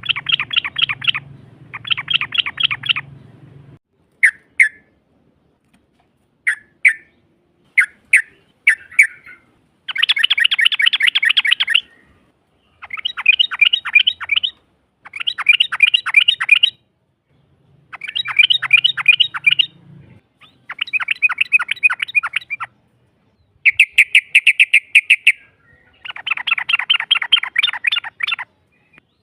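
Yellow-vented bulbul (trucukan) giving rapid bubbling trills in repeated bursts of about two seconds each, with a few short single notes between about four and nine seconds in.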